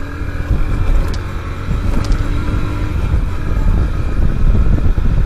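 Motorcycle running while being ridden, with wind rumbling on the microphone; the sound grows slightly louder through the stretch.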